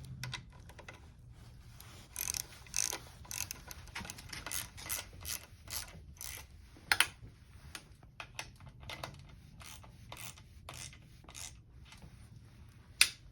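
Lock nut being tightened onto a titanium bicycle seat post clamp: irregular small metallic clicks and ratcheting from the tool and hardware, with two sharper clicks about seven seconds in and near the end.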